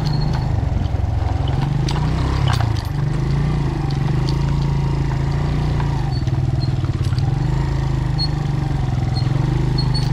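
Big-bore adventure motorcycle engine running at a steady, low pace over a rough dirt track, its note dipping briefly a few seconds in. Occasional clicks and knocks ride over the engine.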